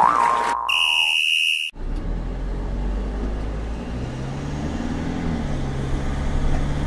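A wobbling cartoon boing trails off, then a buzzer beeps once for about a second. After it, a cartoon car-engine sound effect runs with a low, steady hum.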